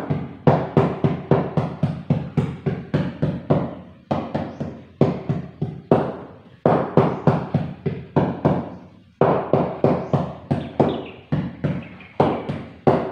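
Repeated knocking on a floor tile as it is tapped down into its mortar bed, about three knocks a second in runs with brief pauses.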